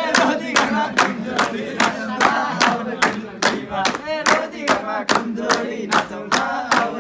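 A group of young men clapping their hands in a steady rhythm, about two and a half claps a second, keeping time for a Nepali dohori sung exchange, with several men's voices laughing and calling out over the claps.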